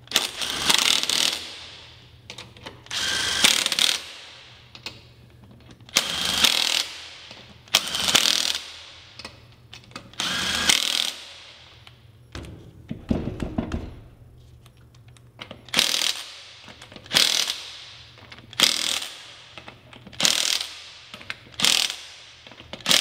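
Milwaukee M18 Fuel compact 1/2-inch cordless impact wrench hammering on wheel lug nuts in about a dozen bursts of a second or less, with short pauses as it moves from nut to nut. The bursts come closer together and get shorter in the second half.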